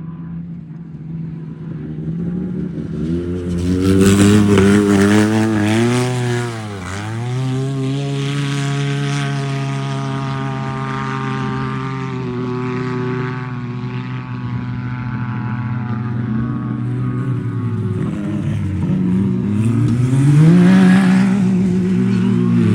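Off-road UTV (side-by-side) engine at high revs under hard driving. The revs climb, drop sharply and pick back up about six or seven seconds in, hold fairly steady, then dip and rise again near the end.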